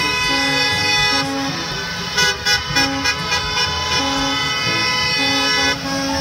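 School bus horns honking: a held, blaring horn tone with shorter toots breaking in around the middle.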